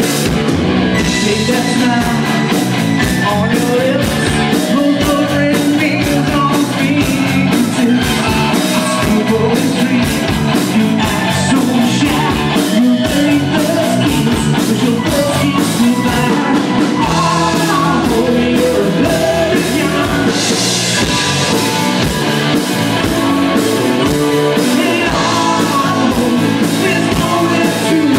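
Live rock band playing at full volume, with drum kit, electric guitars and a lead vocal, during a soundcheck.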